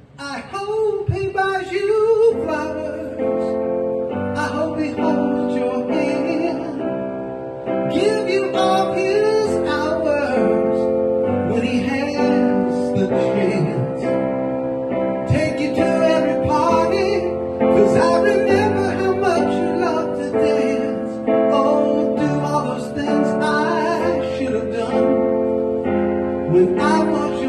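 Live band music: a male vocalist singing into a microphone over electronic keyboard piano chords, a slow ballad.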